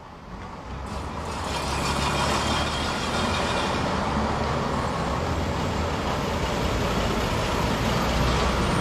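Bus engine running steadily, fading in over the first second or two.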